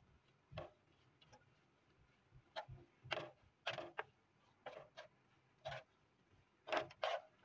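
Spatula stirring and scraping thick grated-carrot halwa with khoya in a non-stick pan: a series of faint, short, irregular scrapes.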